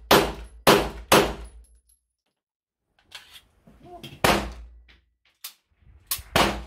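Semi-automatic pistol shots: three quick shots about half a second apart right at the start, then a pause with a few small clicks, then three more sharp bangs near the middle and near the end.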